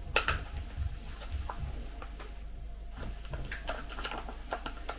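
Plastic food pouch being pulled open by hand: scattered crinkles and small clicks of the packaging.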